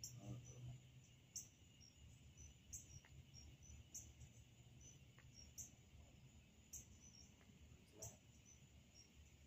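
Faint insect chorus: crickets chirping in short high notes repeating several times a second, with a sharper pulse about every second and a quarter, over a low rumble.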